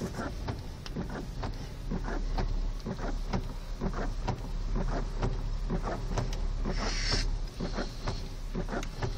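Heavy rain heard from inside a car's cabin: irregular taps of raindrops on the roof and windshield, several a second, over the car's low steady rumble. A brief hiss comes about seven seconds in.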